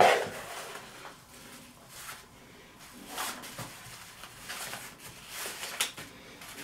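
A sharp thump right at the start, then intermittent rustling of a cardboard box and a fabric cinch bag being handled, pulled out and unfolded.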